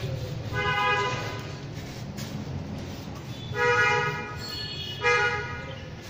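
Vehicle horns honking three times in short, steady-pitched blasts, over a steady low rumble of traffic.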